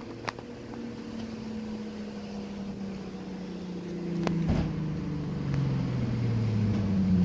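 A motor vehicle's engine running, its pitch drifting slowly down over several seconds and climbing again near the end. A sharp click sounds just after the start and a knock about four seconds in.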